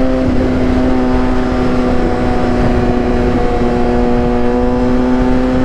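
2015 Kawasaki ZX-6R 636's inline-four engine through a Racefit aftermarket exhaust, running at a steady cruise with an even note that dips slightly midway and climbs a little near the end.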